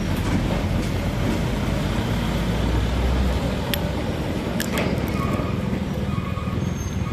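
A light truck's engine running as the truck pulls away close by and climbs a bend. A steady low drone is loudest about three seconds in, with a few sharp knocks about four to five seconds in.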